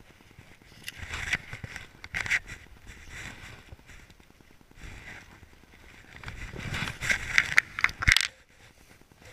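Rustling and scraping of clothing and a fabric bag being handled close to the microphone, in two busy spells with a few sharp clicks and a dull thump shortly before the end.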